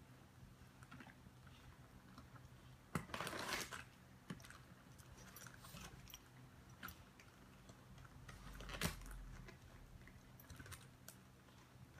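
Puppy chewing and gnawing on a bunch of dry sticks with leaves: faint, scattered crunches and snaps, with a denser crackling crunch about three seconds in and a sharp snap near nine seconds.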